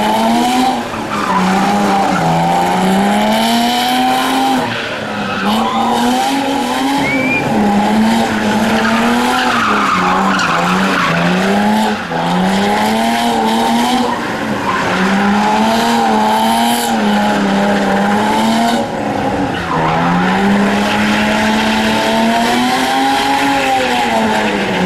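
BMW M3 E36 drift car's engine held at high revs, rising and falling over and over as the throttle is worked through the slide, with several brief lifts. Its rear tyres spin and squeal against the tarmac underneath.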